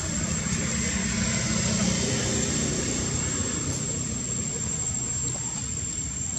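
Steady low rumble of a running motor-vehicle engine, with a thin, high, steady whine above it.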